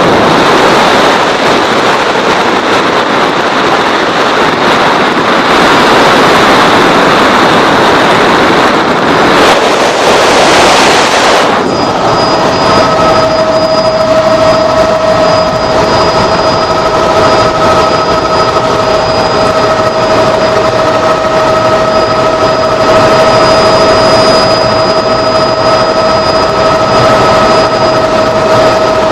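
Helicopter in flight, with loud, steady engine and rotor noise. About twelve seconds in, a steady high whine comes up clearly over the rushing noise and holds.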